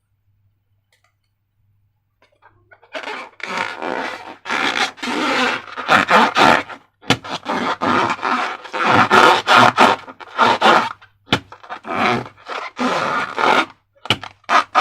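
Slime being squeezed and stretched by hand: a run of irregular wet, scraping squelches, each lasting from a fraction of a second to about a second, starting about three seconds in.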